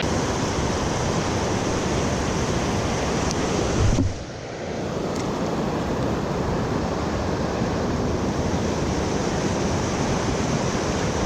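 Fast, heavy river flow rushing steadily. A short low knock about four seconds in, after which the rush briefly drops in level.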